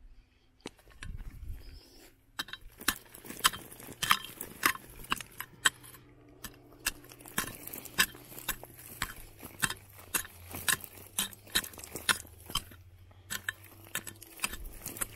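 Small digging tool striking and scraping into stony soil: a run of sharp, irregular strikes, about two a second, starting about two seconds in and stopping shortly before the end.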